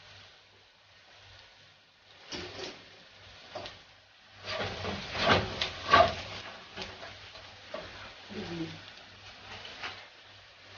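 Kitchen clatter: a series of knocks and clinks from utensils and cookware, busiest and loudest around the middle, over a faint low hum.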